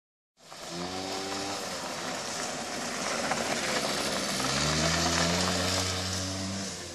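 Small children's quad (ATV) engine running, faint at first, then louder and rising slightly in pitch as the quad comes close around the gravel bend, fading about the time it passes behind the tyres.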